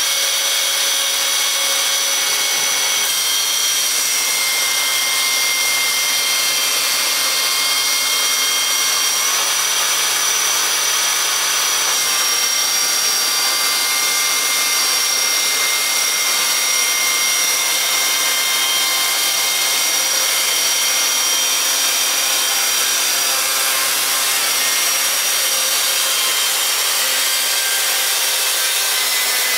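Electric chainsaw mill with a 3/8-inch ripping chain, fed automatically, sawing lengthwise through an oak log. The level jumps up right at the start, then runs loud and steady with a high whine over the chain noise.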